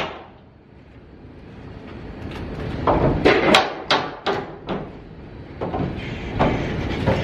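Wooden wall planks knocking and creaking as a board is worked loose and pulled out, with a cluster of sharp wooden knocks about three to five seconds in.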